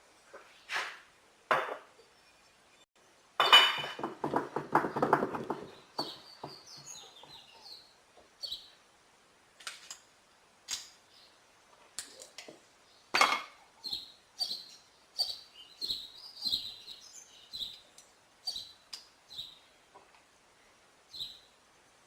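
Metal parts of a car starter motor clinking, knocking and rattling as they are handled and fitted together during reassembly, with a louder burst of rattling about three and a half seconds in and scattered sharp clicks after it.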